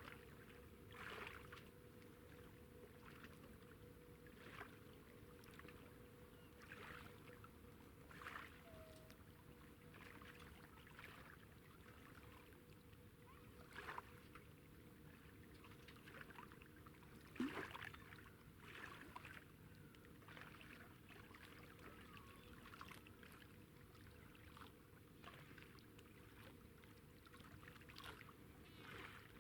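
Faint riverside night ambience: a low steady hum with small, irregular splashes of water lapping at the bank every second or few.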